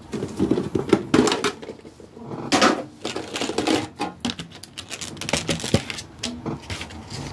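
Pokémon trading cards being handled and sorted through by hand, giving a run of irregular light clicks and taps.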